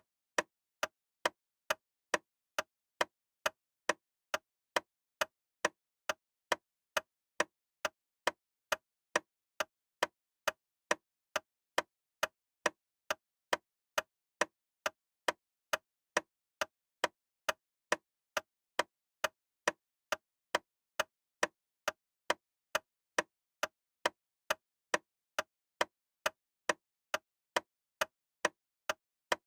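Loud, sharp ticking at a steady pace of a little under two ticks a second, each tick a short click with silence between.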